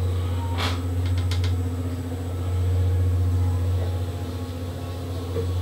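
Old Starlift passenger lift car travelling in its shaft: a steady deep hum from the drive, with a single click about half a second in and a quick run of three or four clicks about a second in. The hum eases a little near the end as the car comes level with a landing door.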